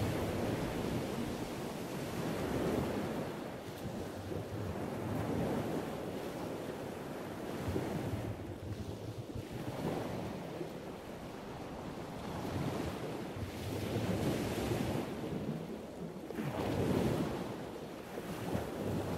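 Ocean waves washing in and out, a rushing noise without any tone that swells and falls back in slow surges every few seconds.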